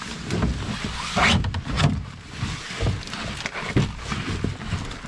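A person walking with a canoe carried overhead: irregular footfalls, with knocks and rustles from the hull and pack. It is loudest between one and two seconds in.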